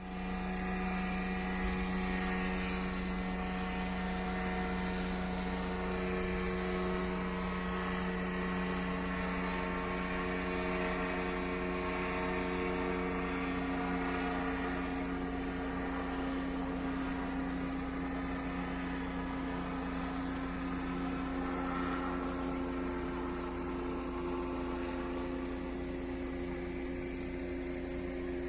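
Small drone's propellers droning steadily in flight, a stack of pitched tones, some of which drift slowly in pitch partway through.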